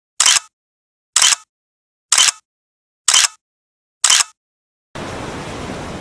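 Five identical short, sharp clicks about a second apart, a repeated sound effect with dead silence between them. Steady surf noise comes back near the end.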